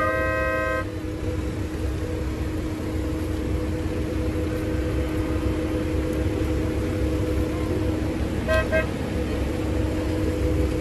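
Car horns honking in a stalled line of cars: a long blast cuts off about a second in, and a short toot sounds near the end, over a steady low rumble.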